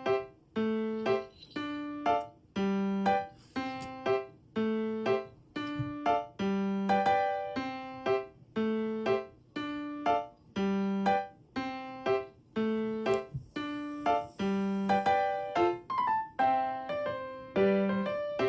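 Background music: a light, bouncy piano or electric-piano tune, its notes struck at an even beat.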